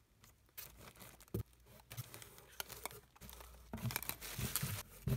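Plastic wrapping and bubble wrap crinkling and rustling in irregular bursts as hands lift plastic slime tubs out of a package, with a few light knocks.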